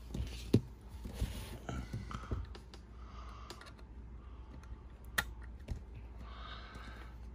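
Scattered small clicks and taps of a die-cast toy car and hand tools being handled, with sharp clicks about half a second in and again a little after five seconds.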